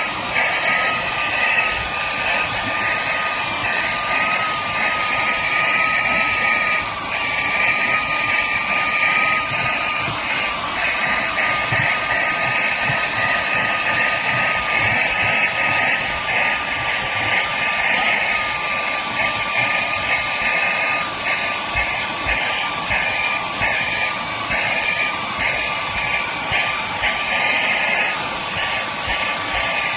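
KLYNGTSK cordless handheld vacuum cleaner / dust blower running steadily: its small high-speed motor gives a high whine over a rush of air, the pitch wavering slightly.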